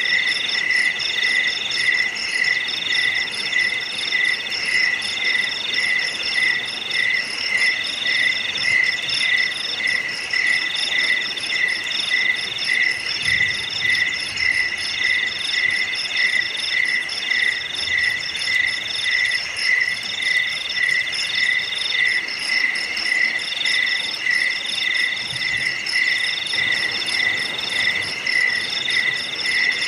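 A steady chorus of chirping insects in several layers: one chirping at a lower pitch about three times a second, another higher one in broken stretches, and finer high-pitched trills over them.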